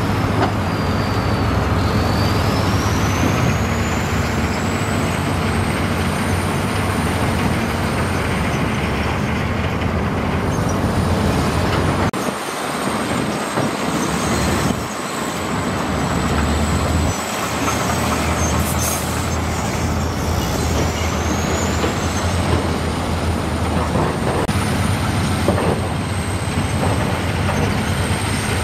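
Heavy diesel construction machinery running steadily: a deep engine hum with a thin high whine that rises and falls. The low hum drops away for a few seconds midway.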